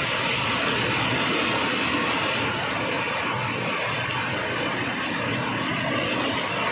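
Heavy rain pouring steadily onto a flooded road, an even hiss of rain and running water.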